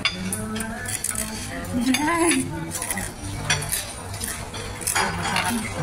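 Cutlery clinking against plates at irregular moments, over the murmur of other diners' voices in a busy dining room.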